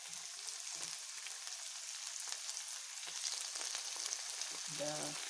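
Onions, garlic and bay leaves sizzling steadily in hot sunflower oil as chopped tomatoes are added to the pan, with faint scattered crackles.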